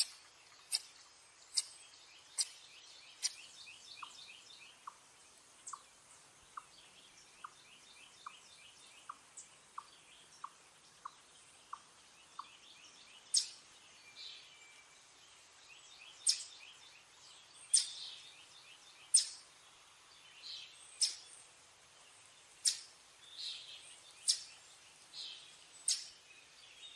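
Eastern chipmunk chip calls: sharp, high chips repeated about once a second, spaced wider in the second half. A lower, softer note repeats a little faster through the first half, with faint fast trills behind.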